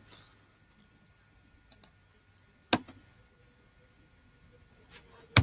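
A few sparse, sharp clicks from someone working a computer's keyboard or mouse, the loudest about three seconds in, with little else heard between them.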